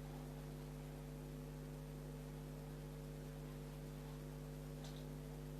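Steady low electrical hum, with a faint brief click near the end.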